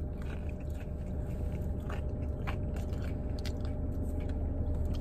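Close chewing and biting of a pressed Cuban sandwich, with small irregular crunches from its crisp pressed bread, over a steady low hum.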